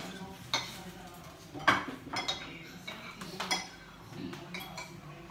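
Spoons and forks clinking against plates and pots as people eat: a scatter of short sharp clinks, the loudest about a second and a half in.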